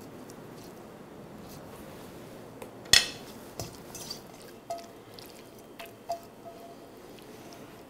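Brass bowl handled while seasoned greens are tossed in it by hand: one sharp knock about three seconds in, then several lighter knocks, a few leaving a short ringing tone from the bowl.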